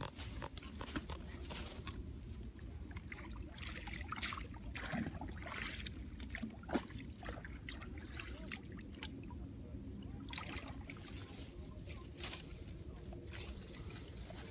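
Shallow muddy water splashing and sloshing irregularly as a person wades in it and moves leafy branches through it, with one sharper knock near the middle.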